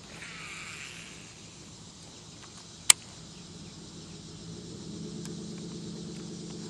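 Insects chirring at the lake edge, with a single sharp click about three seconds in and a steady low hum fading in from about four and a half seconds.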